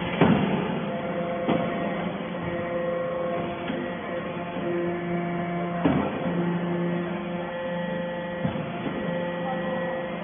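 Hydraulic power unit of a vertical aluminium scrap baler humming, with sharp metallic knocks: a loud one just after the start, and others about a second and a half in and near six seconds in.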